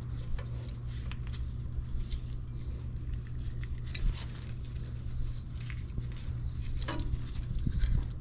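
Hand ratchet with a 7/16 socket clicking in short, irregular runs as a nut is turned. A steady low hum sits underneath.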